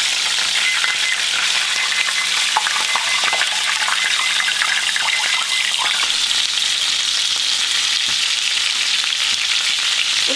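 Steak searing in hot oil in a cast-iron skillet, with butter dropped in partway through: a steady sizzle with scattered small pops.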